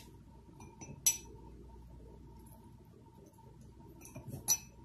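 Basting brush clinking against a glass bowl of melted butter, twice: once about a second in and once near the end, each a short, sharp, high clink. A faint steady hum sits underneath.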